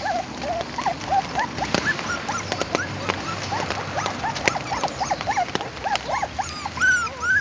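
Puppies whimpering and yelping: a stream of short, high cries that rise and fall, several a second at differing pitches.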